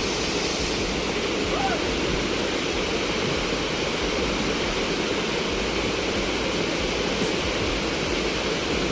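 Thompson Falls, a waterfall, rushing steadily, heard from close to its base where its spray reaches.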